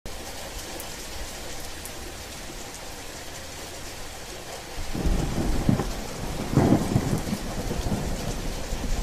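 Steady rain falling, joined about five seconds in by a low, rolling rumble of thunder that swells twice.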